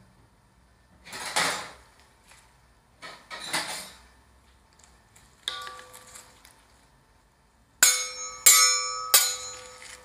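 Steel ice cream roll spatulas striking with a ringing metallic clang: a light clink about halfway, then three loud ringing strikes about 0.7 s apart near the end. Before them come two brief soft swishes.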